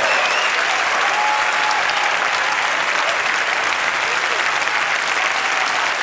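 A large audience applauding steadily, a dense continuous clapping with a few voices calling out from the crowd.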